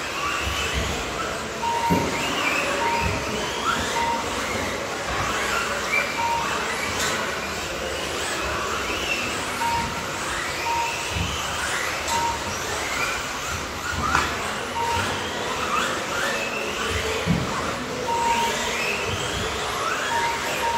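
Several radio-controlled racing buggies driving round a carpet track, their motors whining up and down in pitch as they accelerate and brake. A short electronic beep sounds at irregular intervals, typical of a lap-timing system as cars cross the line, and occasional thumps come from cars landing off jumps.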